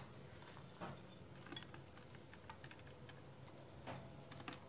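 Faint, irregular clicks and taps of a kitchen knife cutting a walnut piece on a board, about half a dozen light strikes.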